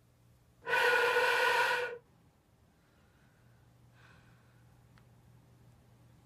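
A person gives one loud, voiced sigh lasting about a second, starting just under a second in, followed by faint room tone.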